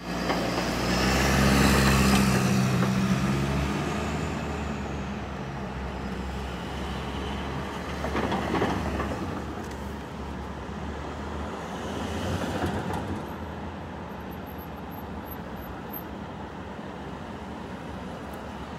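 City street traffic: a large vehicle's engine runs close by, loudest in the first few seconds, then fades into a steady traffic hum with two vehicles passing, about eight and about twelve seconds in.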